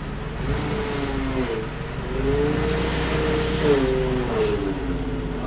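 Forklift engine running and revving up and down, with a pitched whine that rises and then falls, as the forklift lifts and shifts a Cummins N14 diesel engine hung from its forks by chains.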